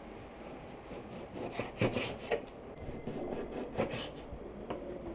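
Irregular scraping and light knocking on a wooden surface during food preparation, a few short strokes with the loudest about two seconds in and again near four seconds.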